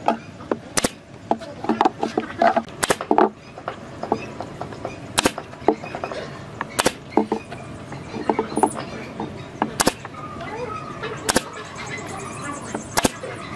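Pneumatic brad nailer firing brads into pine boards: about seven sharp shots, one every second and a half to two seconds, with lighter knocks of the wood being handled between them.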